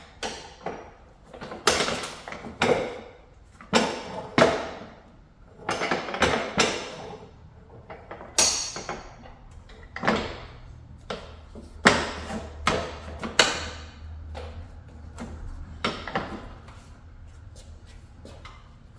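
Antique barber chair being worked through its movements, the footrest and leg rest swung out and the back reclined. Its metal linkages and wooden parts give a string of irregular clunks, clicks and rattles that die away near the end.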